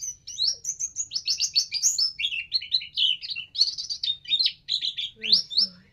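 White-eye (pleci) singing a fast, unbroken twittering song of quick high chirps and sweeps.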